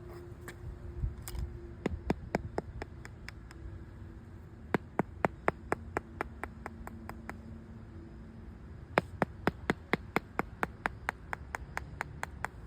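Runs of quick, sharp taps on a tennis court's hard surface, sounding out a hollow, lifted patch or bubble, in three bursts with the longest near the end at about five taps a second.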